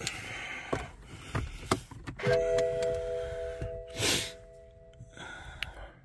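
A few clicks, then the BMW's dashboard warning chime: a steady tone of several notes held for about three seconds before cutting off, as the ignition is switched on. About four seconds in there is a short thump.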